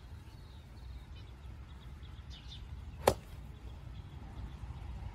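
A golf iron strikes a foam golf ball off a turf hitting mat: one sharp click about three seconds in.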